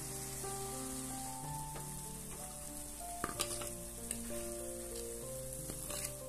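Potato rings deep-frying in hot oil in a frying pan, a steady sizzle, with a few sharp clicks of a fork against the pan about three seconds in and again near the end as the rings are lifted out. Soft background music plays underneath.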